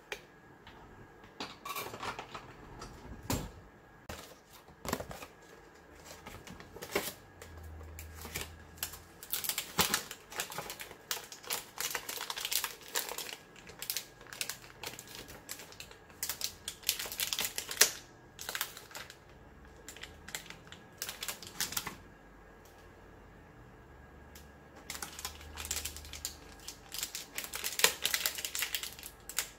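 Plastic packet of sliced meat being torn open and handled, with bursts of crinkling and rustling and scattered clicks and taps on the cutting board.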